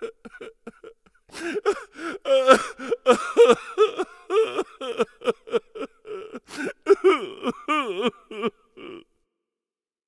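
Exaggerated comic human sobbing and wailing in quick short gasps with a wobbling pitch, stopping about nine seconds in.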